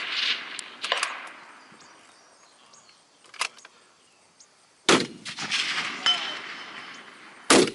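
A precision rifle fires two shots, one about five seconds in and another near the end, about two and a half seconds apart. There are lighter metallic clanks earlier, and a faint ring as steel targets are struck.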